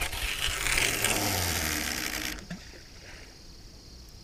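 Fishing line hissing off a spinning reel's spool as a baited carp rig is cast out, stopping sharply after about two and a half seconds. Crickets chirp steadily behind it.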